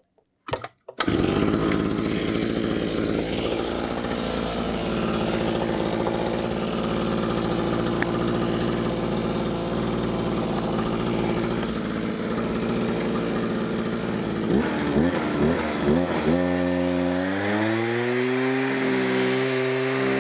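A gasoline brushcutter's two-stroke engine is pull-started and catches about a second in, then runs steadily. Near the end it revs up and down and settles at high speed as the rotary steel wire brush is worked over paver joints, with the brush scraping the stone.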